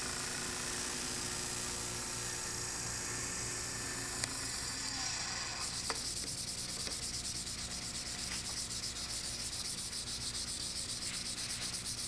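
Fine 600-grit sandpaper on a block rubbing a small wooden pen blank on a mini lathe: a steady hiss, then from about halfway quick, even back-and-forth strokes, about three a second.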